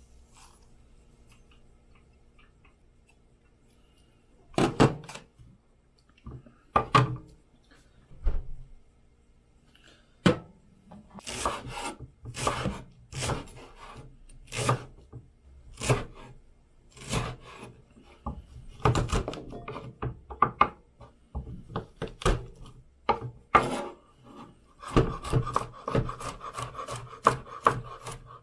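Chef's knife cutting on a wooden cutting board. The strokes start about four seconds in as separate knocks, slicing vegetables, and near the end they quicken into a rapid run of chops as garlic is minced.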